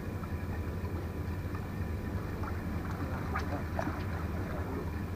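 Steady low rumble of wind and distant boat-engine drone, with a faint steady hum over it. A few faint clicks and chirps come between about two and four seconds in.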